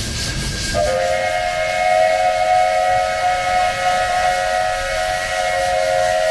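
Steam whistle of Mount Washington Cog Railway steam locomotive No. 2, starting suddenly about a second in and held as one long steady chord of several tones. Before it and under it, steam hisses from the locomotive.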